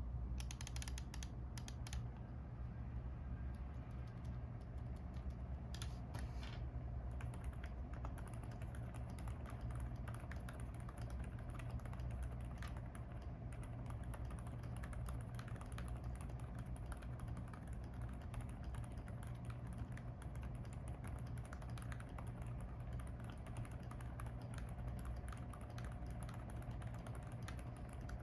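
Continuous fast typing on a mechanical keyboard fitted with lubed Akko Fairy Silent linear switches and Cherry-profile PBT keycaps: a dense stream of soft, muted keystroke clicks.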